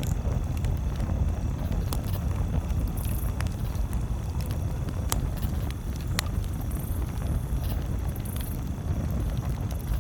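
Campfire crackling: scattered sharp pops and snaps, the strongest about five and six seconds in, with short hisses, over a steady low rumble.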